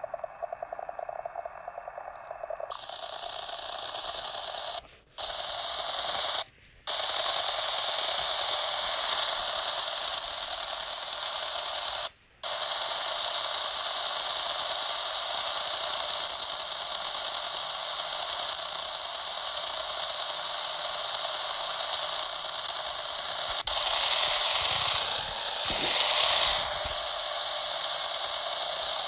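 Shortwave receiver audio from a WebSDR tuned near 3164 kHz: a steady hiss of band noise. It turns brighter and wider about three seconds in as the receiver is switched to a wider AM filter. It cuts out briefly three times in the first half and swells louder near the end.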